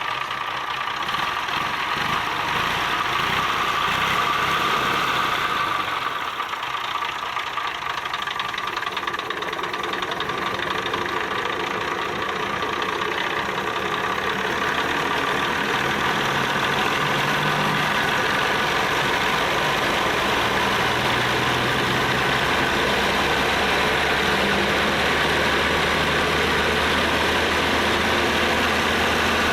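Massey Ferguson tractor's diesel engine running steadily, with a low hum that settles and grows steadier about two-thirds of the way through.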